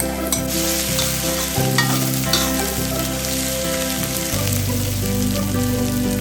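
Food frying and sizzling in a hot pan while being stirred, with a few sharp clinks of the utensil against the pan in the first couple of seconds.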